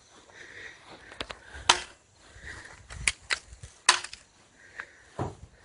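A handful of sharp, irregularly spaced clicks or snaps, the loudest about a second and a half in and just before four seconds.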